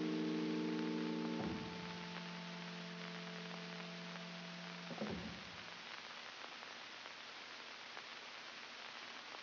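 The last held chord of the closing music, a stack of steady tones, breaks off in two steps, about a second and a half in and again about five seconds in. Only a low steady hiss is left after that.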